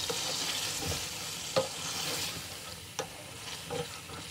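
Beef pieces frying down in a karahi with a steady sizzle while a wooden spatula stirs them. The spatula knocks sharply against the pan about one and a half seconds in and again about three seconds in.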